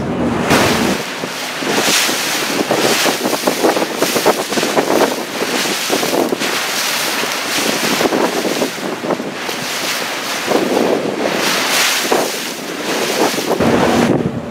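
Wind buffeting the microphone in uneven gusts over the rush of water alongside a moving boat. A low steady engine hum sits under it for the first second and comes back near the end.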